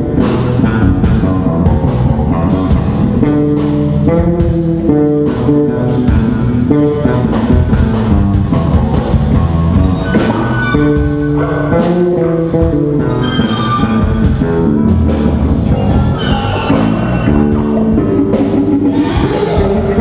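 Blues-rock band playing live: electric guitar and bass guitar over drums, with a guitar melody line coming forward about halfway through.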